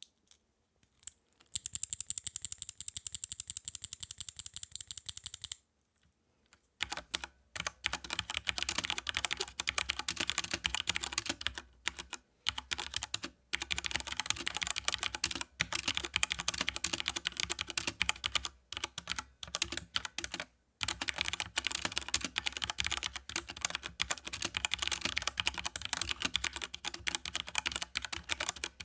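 Cooler Master Rapid I mechanical keyboard with Cherry MX Red linear switches and ABS keycaps being typed on: a few single key presses, then a very rapid, even run of key strikes for about four seconds, a short pause, and then steady typing with a few brief breaks.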